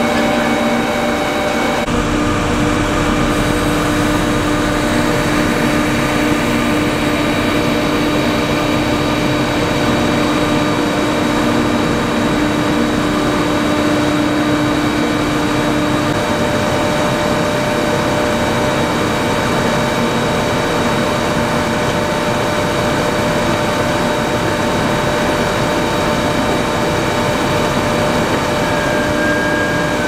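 Potato handling machinery running steadily: the Brettmeister K6 potato transfer trailer's conveyors and air-separation blower, with the diesel engines of the tractor driving it and the JCB telehandler loading it. The mix shifts once about two seconds in, then holds steady with a few constant whines.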